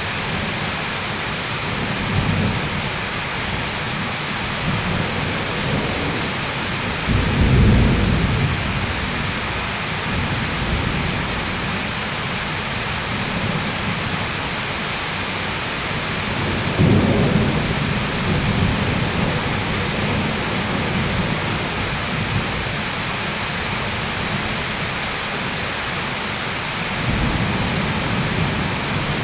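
Heavy steady rain with rolling thunder: two deep rumbles swell up, about seven and seventeen seconds in, and a third builds near the end.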